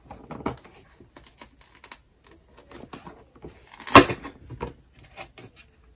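A cardboard advent calendar being opened by hand: a run of small clicks and scrapes of cardboard and packaging, with one louder snap about four seconds in.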